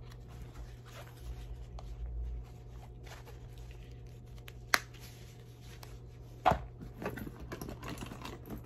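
Hands handling a makeup compact and a small fabric pouch: soft rustling broken by a few sharp clicks, the first, about five seconds in, as the pouch's snap fastener is pressed shut, and another about a second and a half later, then rummaging inside a leather handbag.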